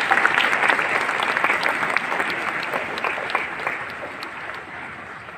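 Audience of schoolchildren and staff applauding after a speech, the clapping strongest at first and dying away gradually.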